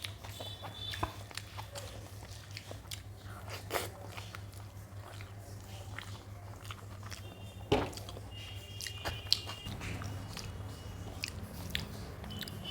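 A person eating rice with dal close to the microphone: chewing and wet mouth sounds with many small clicks, over a steady low hum. There is a sharper click near eight seconds in and another about a second and a half later.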